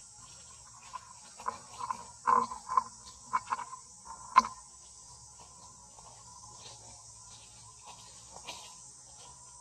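Steady high-pitched buzzing of an insect chorus. Between about one and four and a half seconds in, a quick run of short squeaky calls rises over it, ending in one sharp click.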